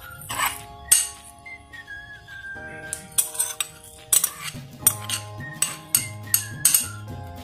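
A ribbed glass bowl clinking sharply, about eight times in quick succession in the second half, as chopped curry leaves are tipped and tapped out of it into the flour mix. Soft background music with a melody plays underneath.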